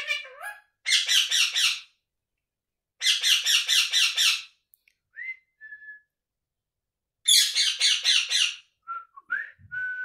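Indian ringneck parakeet calling in three loud bursts of rapid repeated notes, with a few short whistled notes between and after them.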